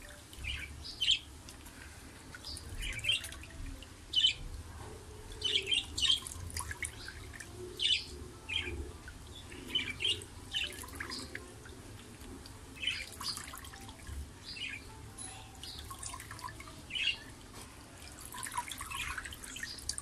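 Budgerigars chirping in short, scattered calls throughout while one is held and bathed, with faint dripping and splashing of water.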